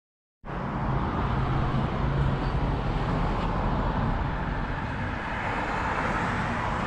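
Steady street traffic noise, a low rumble of passing vehicles, cutting in abruptly about half a second in.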